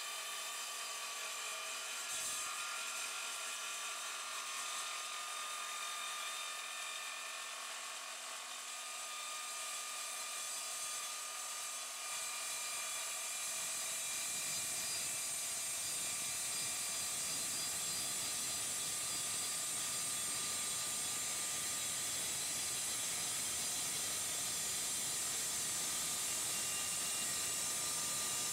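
An Evolution Rage 3 mitre saw's blade cutting slowly through aluminium chequer plate in one long, steady cut. The sound grows a little louder and heavier about halfway through.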